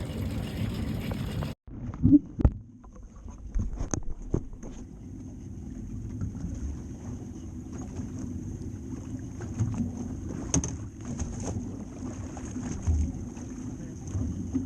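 Water sloshing around a kayak with wind buffeting the microphone, and a few sharp knocks on the hull soon after the start.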